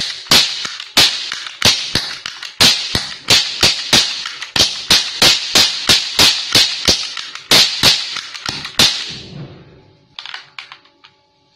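Two toy cap pistols firing paper roll caps in quick succession: a rapid, irregular string of sharp cracks, about two to three a second, that stops about nine seconds in. A few faint clicks follow.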